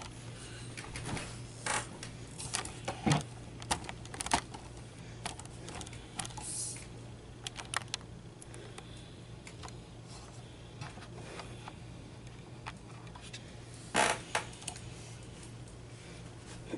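Scattered small clicks, taps and rustles of a knitted sweater being handled on a laptop keyboard, with a louder cluster about 14 seconds in, over a steady low hum.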